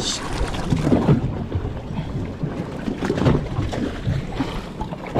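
Hooked longtail tuna thrashing and splashing at the surface beside a boat as it is gaffed, with a few sharper splashes about a second in and about three seconds in, over a steady low rumble of boat and wind.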